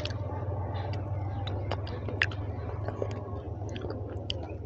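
Close-up chewing of a mouthful of mutton curry and rice, with many short wet mouth clicks and smacks, one sharper than the rest a little after two seconds. A steady low hum runs underneath.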